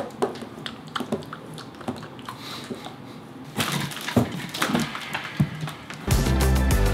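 Scattered light knocks, clicks and rustles as a plastic toilet seat and its packaging are handled. Background music comes in near the end.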